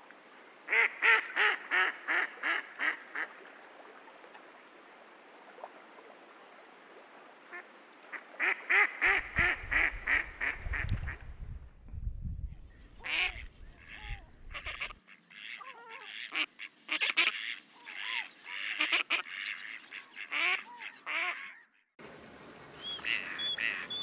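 Waterfowl calling: runs of rapid nasal calls, about four a second, then many birds calling over one another like a flock. A low rumble comes in the middle, and after a sudden break near the end there are higher, shorter calls.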